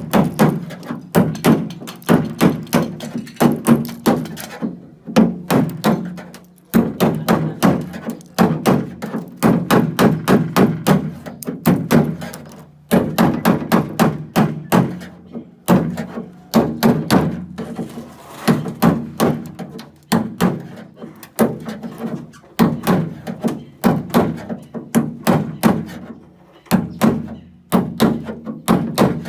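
Hammer blows on a car's sheet-metal wing panel: quick runs of dull, knocking strikes with a low ring, broken by short pauses every few seconds.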